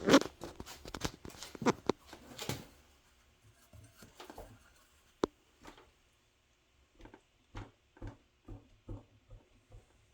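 Repeated clunks from a Yamaha YZ250 dirt bike's rear suspension linkage as it is rocked by hand. There is a rapid clatter of knocks at first, a single sharp click about five seconds in, then softer knocks about twice a second. The knocking is play in the rear suspension after all its bearings were replaced, which the owner is pretty sure is in the upper shock bearing.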